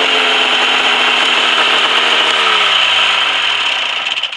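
Ski-Doo Safari snowmobile's two-stroke engine running at speed, with a heavy rush of track and wind noise. From about halfway through its pitch falls as the sled slows, and the sound drops away right at the end.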